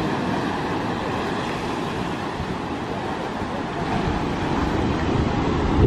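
Steady rush of wind on the microphone mixed with the wash of surf breaking over rocks below.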